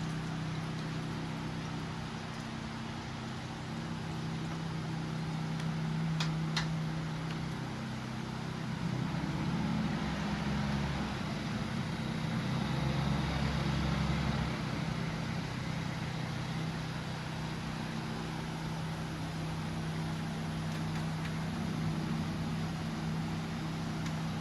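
A steady low mechanical hum under an even hiss, swelling a little in the middle, with two faint ticks about six seconds in.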